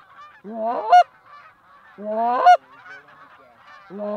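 A flock of geese honking as it flies in. Three loud honks, each rising in pitch with a break, come about a second and a half apart over a steady chorus of many fainter honks.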